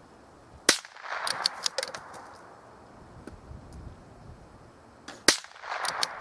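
Two shots from a scoped Savage bolt-action rifle, about four and a half seconds apart, each a sharp crack followed by about a second of clicks and clatter.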